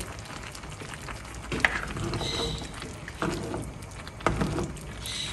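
A spoon stirring a wet, simmering soy-mince picadillo in a glazed clay cazuela: squelchy stirring with several sharp knocks and scrapes against the pot, the loudest about one and a half seconds in and again near the end.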